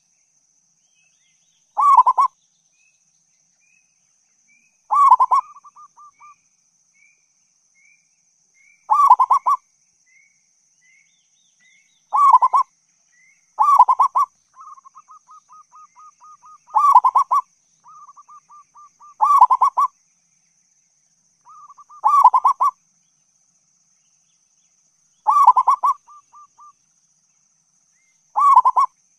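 Zebra dove (perkutut) cooing: about ten loud bursts of rapid trilled coos, each under a second, repeated every two to four seconds, with a softer fast trill between some of them.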